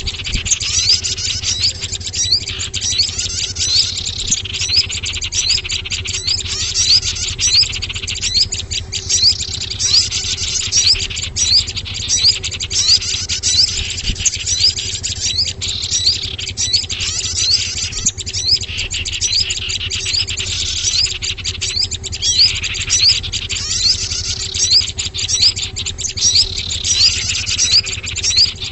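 Bird-lure recording of small songbirds: a dense, continuous chorus of high chirps and twitters. A longer call sweeps downward about every six seconds, over a steady low hum.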